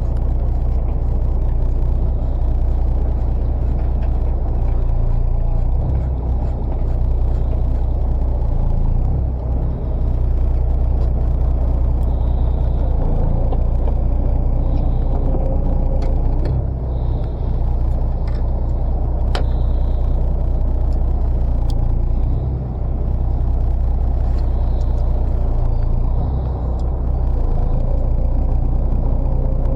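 A fishing boat's engine running steadily, a continuous low drone, with a few faint clicks over it.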